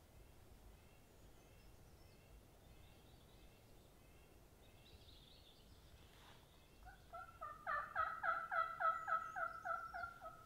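A fast run of about a dozen turkey yelps, evenly spaced at roughly four a second. It starts about seven seconds in, rising quickly to full loudness. Faint songbird chirps sound underneath.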